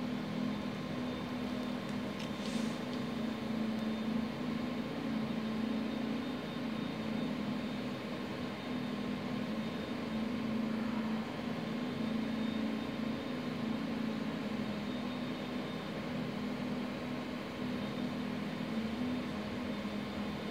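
Steady low mechanical hum with faint whining tones over a constant background hiss, and a brief hiss about two and a half seconds in.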